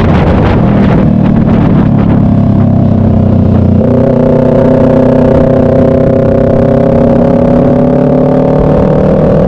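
Motorcycle engine heard from an onboard camera at speed on a race track, with wind rushing over the microphone. The note is low and rough for the first few seconds, then about four seconds in it changes to a higher note that climbs slowly as the bike accelerates.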